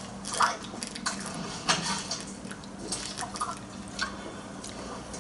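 A man drinking beer from a glass bottle in long swigs: an irregular string of gulps and liquid glugging in the bottle, with two louder gulps in the first two seconds.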